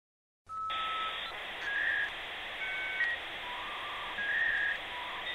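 A string of short electronic beeps at changing pitches, once two tones together, over a steady hiss, beginning suddenly about half a second in.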